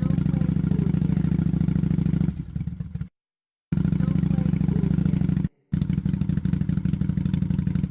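Kawasaki VN800 Classic V-twin motorcycle engine running steadily at a constant speed, with no revving. The sound comes as three separate takes, each cut off abruptly: one ends about three seconds in, after a short dip, and a shorter gap follows at about five and a half seconds.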